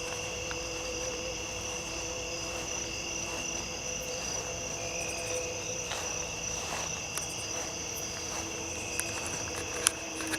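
A steady chorus of crickets and other insects trilling together at several pitches, continuous and unchanging. A couple of short snaps or ticks come near the end.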